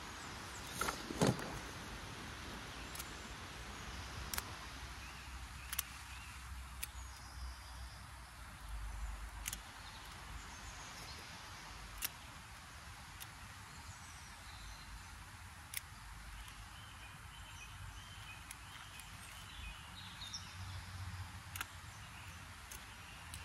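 Wind buffeting the microphone as a low rumble, with about ten sharp clicks at uneven intervals, the loudest about a second in.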